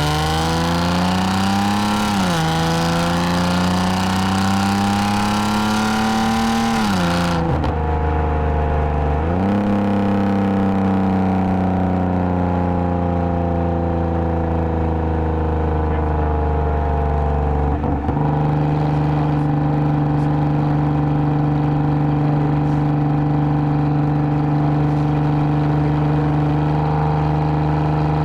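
2010 Lexus IS250 AWD's 2.5-litre V6 through a full aftermarket exhaust with valved mufflers, pulling under throttle with revs rising through an upshift about two seconds in. The throttle lifts abruptly at about seven seconds and the revs drop. The car then picks up again, eases off, shifts near eighteen seconds and settles into a steady cruise.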